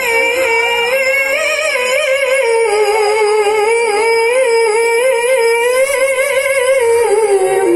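A woman reciting the Qur'an in the melodic tilawah style, holding one long drawn-out phrase with quick, wavering ornaments in the pitch. The pitch sinks lower near the end.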